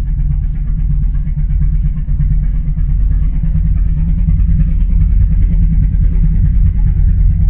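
Loud, steady low rumble from a Godzilla film sound effect.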